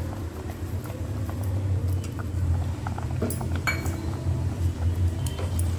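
A steel ladle clinking a few times against a steel cooking pot, two sharper clinks a little past halfway, over a steady low hum.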